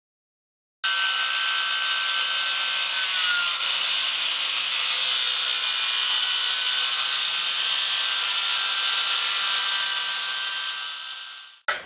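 Power saw cutting through wood: a loud, steady cutting noise that starts abruptly and runs for about ten seconds before tapering off near the end.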